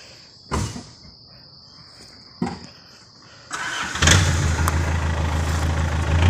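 Two sharp thumps, then about three and a half seconds in a vehicle engine is started and settles into a steady idle. A steady high cricket chirr runs under the first part until the engine starts.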